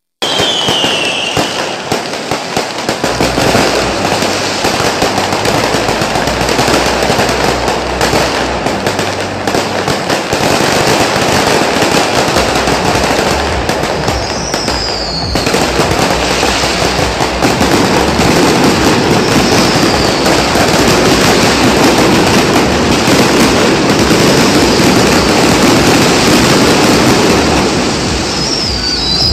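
Fireworks display: a dense, continuous barrage of bangs and crackling, with a few high whistles falling in pitch now and then.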